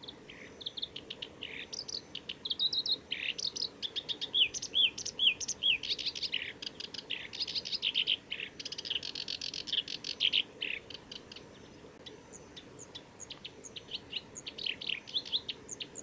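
Black-browed reed warbler singing: a long run of quick, varied, repeated notes. It pauses for a few seconds about two-thirds of the way through, leaving only a few faint high notes, then starts again near the end.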